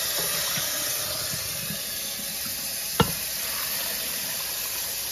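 Cold water running from a kitchen tap into a measuring pitcher, then poured from the pitcher into an Instant Pot's stainless steel inner pot. A single sharp knock sounds about three seconds in.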